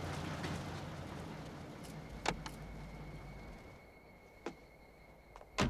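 Vintage touring car's engine idling with a low, steady hum that drops away about four seconds in. Sharp clicks come about two seconds in and again later, the loudest near the end.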